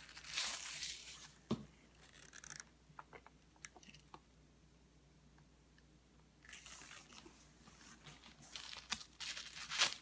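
Plastic wrapping crinkling and rustling in bursts as a pebbled leather hobo bag is handled, with a few light clicks and taps in between and a quieter spell about halfway through.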